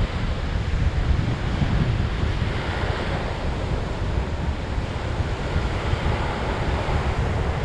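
Wind buffeting the GoPro Hero7 Black's built-in microphone with a heavy, fluttering rumble, over the steady wash of ocean surf.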